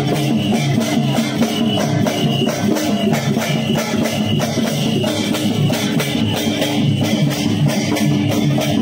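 Music with a steady, fast drum beat over sustained pitched instruments.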